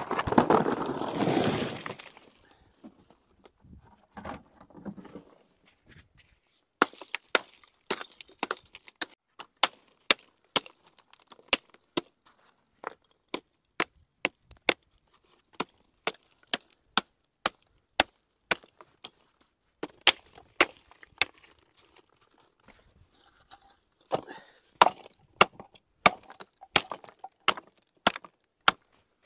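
A bucket of loose rubble tipped out onto rocks, a short rushing clatter. Then rock being struck by hand over and over, a long run of sharp knocks, one or two a second, with short pauses between runs, as pieces are chipped off the rock.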